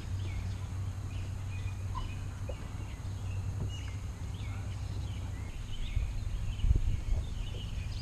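Wild birds chirping and calling in the riverside trees, short scattered calls over a steady low rumble, with a few low thumps about three-quarters of the way through.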